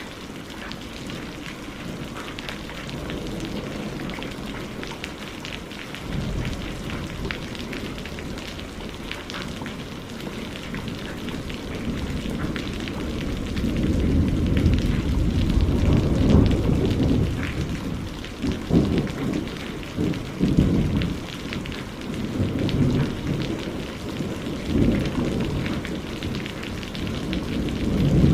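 Steady rain falling, a dense patter of drops, with low rumbles swelling in and out through the second half.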